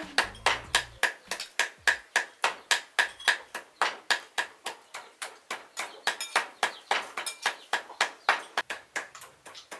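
Knife chopping fast and steadily on a wooden chopping block, about five strokes a second, mincing food.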